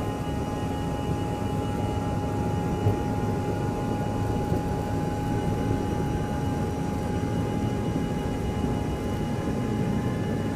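Cabin sound inside an Embraer ERJ145 regional jet as it taxis. The rear-mounted Rolls-Royce AE 3007 turbofans give a steady whine of several held tones over a low rumble, with a single brief thump about three seconds in.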